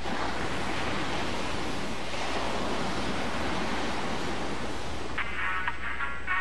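Ocean surf washing onto a beach, a steady rushing noise of breaking waves. About five seconds in, music starts up over it.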